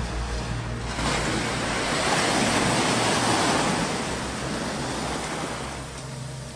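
Sea waves breaking on a shore: a wash of surf swells up about a second in and slowly recedes over the following few seconds.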